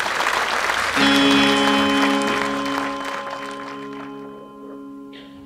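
Audience applause ending, then a single sustained chord starting about a second in and slowly fading away.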